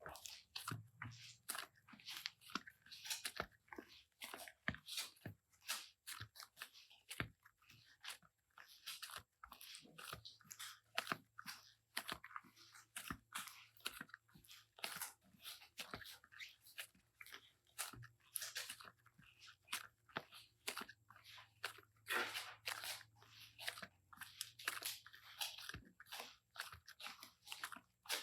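Slime being worked by hand, making a dense, irregular run of short, sticky clicks and crackles.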